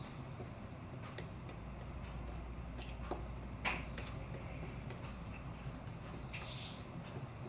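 A spoon stirring a sticky paste of herbal powder and honey in a bowl: faint scraping with scattered small clicks of the spoon against the bowl, and one sharper knock a little past halfway.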